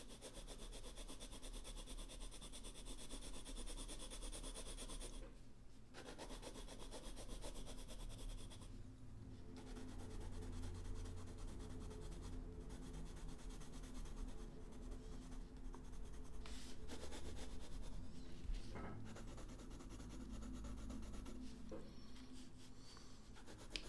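Blue pencil shading on sketchbook paper: a faint, steady scratchy rubbing of the lead over the paper, with a couple of short pauses between runs of strokes.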